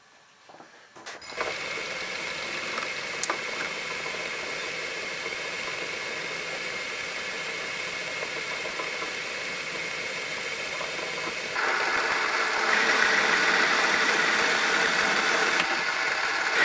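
Metal lathe switched on about a second in, its motor and gearing then running steadily with the chuck spinning. About two-thirds of the way through the sound steps up louder and harsher as the tool starts turning the high-tensile steel bar.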